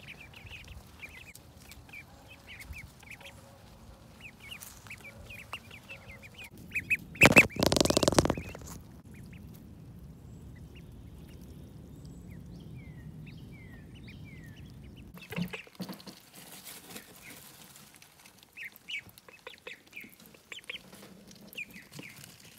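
Indian runner ducklings peeping, many short high calls overlapping. About seven seconds in, a loud rush of noise lasting about a second and a half briefly covers them.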